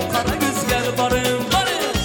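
Loud dance music with a quick, steady beat and a running melody.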